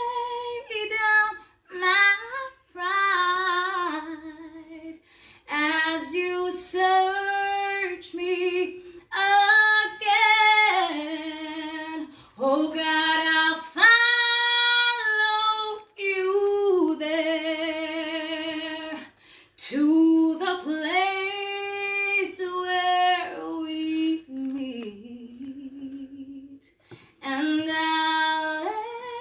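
A woman singing a slow worship song solo and unaccompanied. She holds long notes, some with vibrato, linked by sliding runs, with short breaths between phrases.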